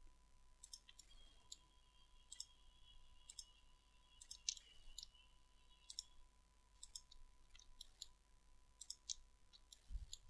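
Faint computer mouse clicks, about twenty, irregularly spaced, as mesh points are selected one after another, over a faint steady tone.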